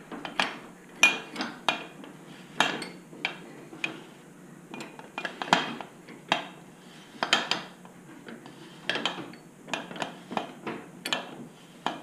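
Irregular metallic clinks and knocks, roughly two a second, of motorcycle fork parts and tools being handled: the fork's inner tube, cartridge and cartridge tool tapping together as they are set in place.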